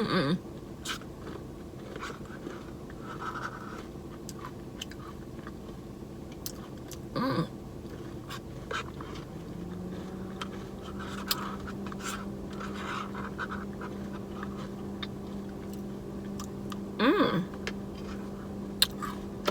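Person eating a soft-serve Blizzard by spoon: quiet chewing and mouth sounds with small spoon clicks, broken by a few short vocal sounds. A steady low hum comes in about halfway through.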